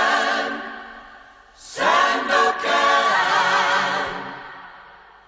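A choir singing a cappella: a long held chord fades out, then a second held chord swells in about two seconds in and slowly dies away.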